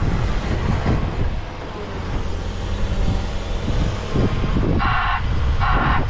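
Volvo EWR150E wheeled excavator's diesel engine running steadily, with a few low knocks, and its warning alarm starting to beep near the end: two short beeps.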